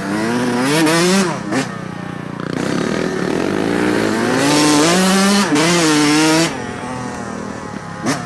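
Dirt bike engine revving under load as the throttle is worked, its pitch climbing and falling in two main surges, the longer one in the middle, with short blips of throttle in between.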